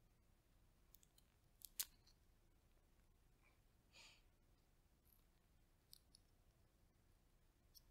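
Roasted chestnut shells cracking and crackling under fingers as they are peeled: a few sharp cracks, the loudest a little under two seconds in, with a brief rustle of shell about four seconds in.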